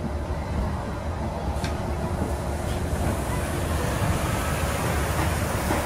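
Steady rumble and hiss of a Disneyland Mark VII monorail running on its beam, heard from inside the cabin.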